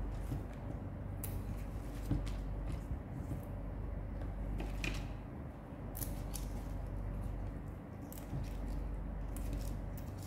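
Fresh rocket (gergir) leaves handled in a plastic basin: leaves rustling and stems snapping as they are picked off, giving irregular crisp clicks over a steady low hum.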